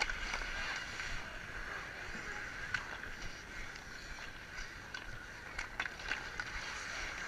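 Outdoor ice hockey game: skate blades scraping and gliding on the ice, with a few sharp clacks of sticks and puck and a steady murmur from the crowd along the boards.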